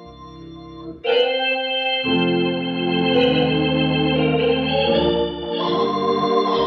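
Organ music: held chords that sustain without fading. A louder chord comes in about a second in, a bass line joins a second later, and the harmony shifts near the end.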